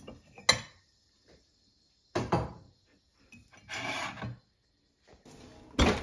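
Ceramic mugs clinking as one is lifted off a stack on a shelf, followed by a few knocks and a short rustle of kitchen handling. The loudest knock comes near the end.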